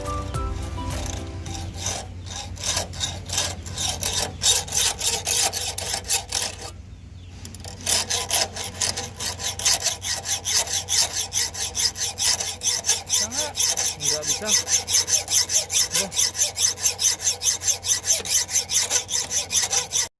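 Hand tool rasping back and forth against the steel of a padlock, in regular strokes of about three a second. The strokes pause briefly about seven seconds in, then go faster, about four a second.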